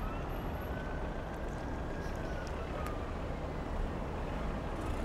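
Street traffic noise: a steady rumble of passing road vehicles, with a faint tone slowly rising and falling.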